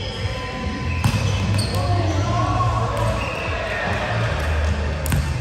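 Indoor volleyball play: the ball is struck and bounces as a few sharp knocks, with short high squeaks of shoes on the court and players' voices calling in the background.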